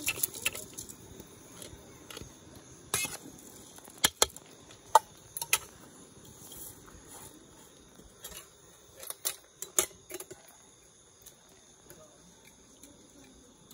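Metal cooking pot and basin knocking and clanking several times as they are handled, the knocks falling off near the end. Crickets chirp steadily underneath.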